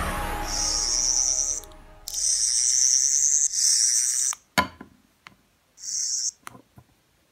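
Character Options sonic lipstick toy giving its high-pitched electronic sonic buzz in four bursts, over the tail of fading music. A sharp click comes about halfway through, then a few lighter taps as the plastic toy is handled and set down.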